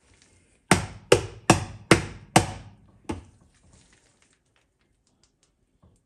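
A filled amber jar knocked down on the steel platform of a kitchen scale: five sharp knocks in quick succession, about two and a half a second, then a lighter sixth knock.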